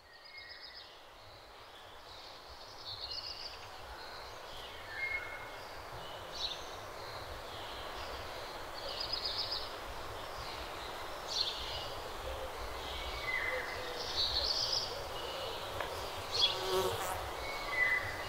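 Quiet forest ambience: small birds give short high chirps and brief trills every second or two over a faint steady hiss and low rumble.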